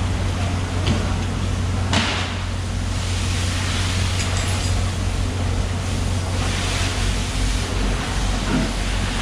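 A hand fish scaler scraping scales off a large mahi-mahi in repeated strokes, heard as rasping rushes about two seconds in and again in the second half, over a steady low hum.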